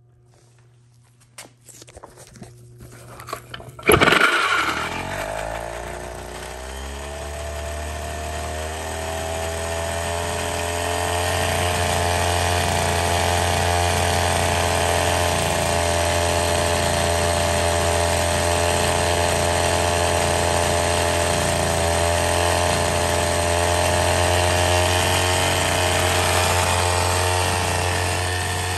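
Homelite XL-12 two-stroke chainsaw powerhead of a 1966 US Army generator set being pull-started. A few clicks and rattles from the recoil starter come first. It catches about four seconds in, rises in pitch as it comes up to speed and settles into steady running.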